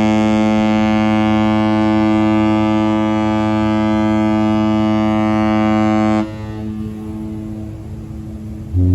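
Cruise ship horns exchanging blasts. A deep, loud ship's horn holds one steady note and cuts off suddenly about six seconds in. A fainter horn carries on briefly, then another loud blast on a slightly lower note starts near the end.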